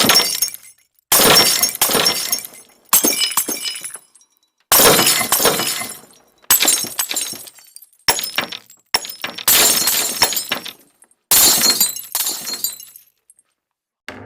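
Glass smashing again and again: about nine separate crashes, each starting suddenly and fading out over about a second.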